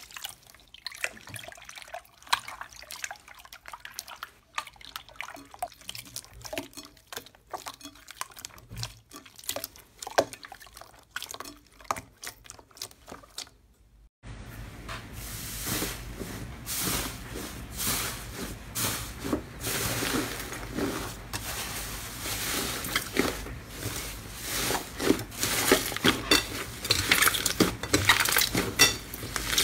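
Hands squeezing and stretching slime, making sticky wet clicks and pops. About halfway through it changes to louder, denser crackling over a steady background hiss as a different slime is pressed and kneaded.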